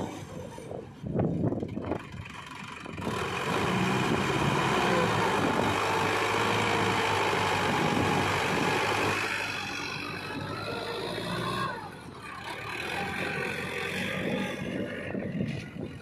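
Sonalika DI 750 RX tractor's diesel engine pulling a loaded trailer through soft sand. It grows louder about three seconds in and eases off again from about nine seconds.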